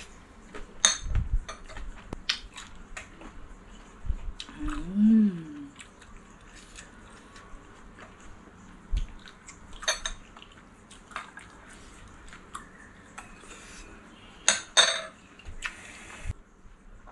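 Close-up eating sounds: chewing a mouthful of raw salmon and seaweed, with sharp clinks of a spoon and fork against the glass and dishes, the loudest a pair near the end. About five seconds in comes one short hummed 'mmm' that rises and falls.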